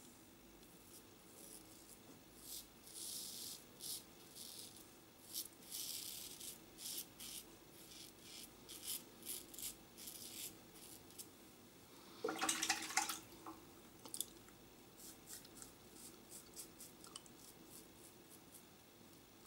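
Gillette Tech double-edge safety razor with a Gillette 7 o'clock blade cutting through lathered beard stubble: a series of short, raspy scraping strokes. About twelve seconds in there is one louder, fuller noise lasting about a second.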